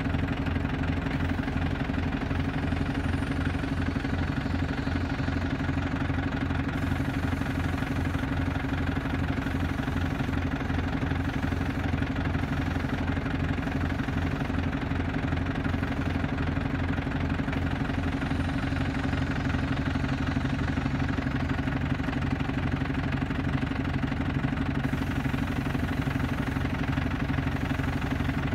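Iveco-Ford 75E14 lorry's four-cylinder diesel engine idling steadily, with an even low pulsing beat.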